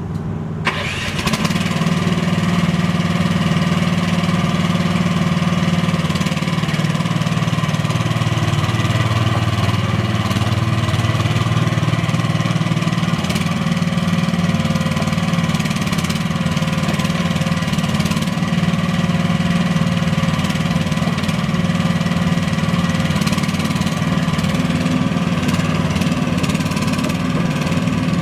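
AGT H15 mini excavator's engine starting, catching about a second in, then running steadily at idle.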